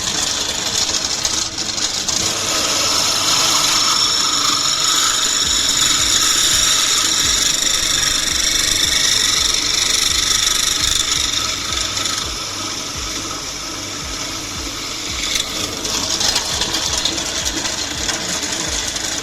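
Electric drill with a 9 mm bit boring through the metal quick-release end cap of a bicycle hub: a steady grinding whine with a high squeal as the bit cuts. The cutting eases about two-thirds of the way through, then bites harder again.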